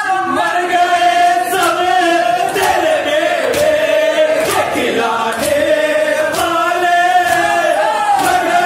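A crowd of men chanting a marsiya lament together behind a lead voice on a microphone. From about a second and a half in, rhythmic matam chest-beating slaps land about once a second.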